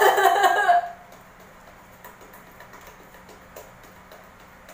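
A person's voice briefly in the first second, then faint scattered clicks and ticks.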